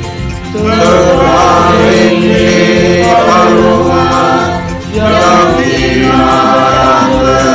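Church choir singing a hymn in several-part harmony, with long held notes and two brief breaths between phrases.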